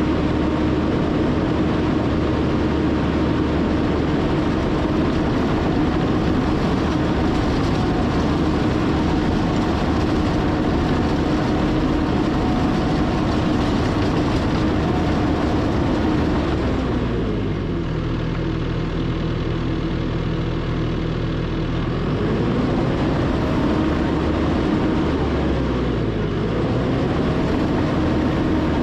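John Deere 450K LGP bulldozer's diesel engine running steadily. About two-thirds of the way in it drops in pitch for several seconds, then rises back to speed, and it dips briefly once more near the end.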